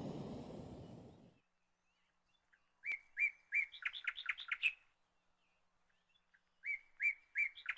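The hiss of a camping gas stove burner under a pan fades out in the first second or so. Then a small songbird sings the same short phrase twice, about four seconds apart: a few even notes followed by a quicker run of notes.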